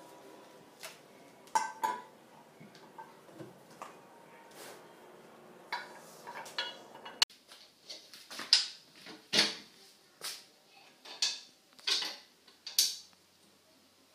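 Cast iron stove parts clicking and clinking as they are handled. Then a cast iron stove door and its latch clank as the door is fitted and worked: a run of about seven sharp metallic knocks, roughly one a second, in the second half.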